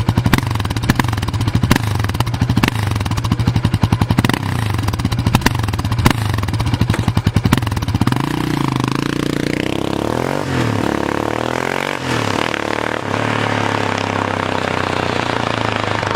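Yamaha Raptor 700 quad's single-cylinder four-stroke engine with a LeoVince aftermarket exhaust, idling with distinct separate firing pulses. About eight seconds in it is revved: the pitch climbs, dips and rises again in a few blips, then holds at a steady raised speed.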